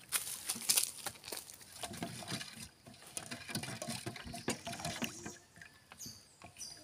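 Wooden spoon stirring milk in a stainless-steel bowl: quick scraping and tapping against the metal with light sloshing, loudest in the first second.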